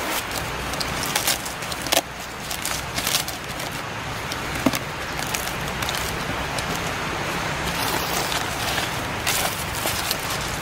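Dry palm fronds rustling and bamboo poles knocking lightly as they are handled, with a couple of sharper clicks, over a steady low rumble.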